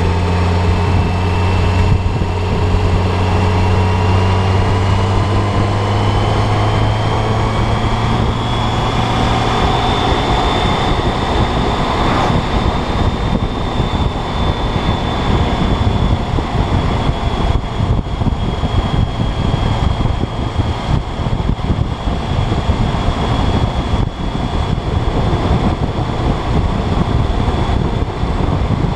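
Motorcycle engine running steadily under way, with a rushing noise. A whine rises in pitch over roughly the first ten seconds and then holds steady.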